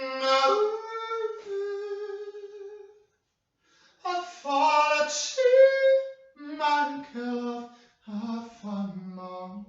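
A single voice singing unaccompanied, holding long notes of one to three seconds and stepping between pitches, with short breaks between phrases.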